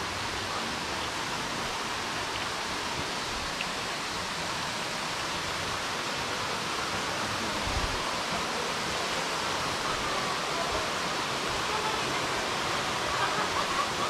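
Steady rush of falling water from a rainforest waterfall and its stream, an even unbroken hiss.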